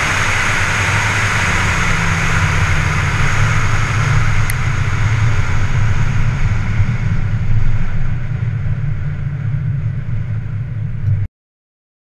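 Car engine running at low revs under wind and road noise on an outside, hood-level microphone; the wind hiss fades from about halfway as the car slows, and the sound cuts off abruptly near the end.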